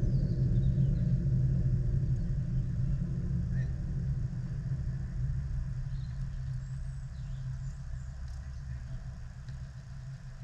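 A low, steady rumble with a hum in it that slowly fades away, with a few faint distant calls and knocks over it.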